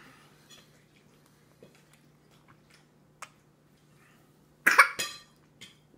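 A toddler eating macaroni coughs twice in quick succession about three-quarters of the way in, as if a mouthful went down the wrong way; before that only faint mouth smacks and chewing.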